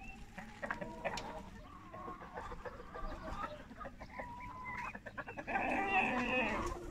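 A flock of domestic hens clucking as they come out of the coop: scattered short calls at first, then a louder, busier stretch of several birds calling at once in the last second or so.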